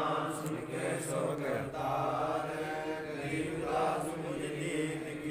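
Men's voices reciting scripture aloud in a continuous chant, the lines running on with few pauses.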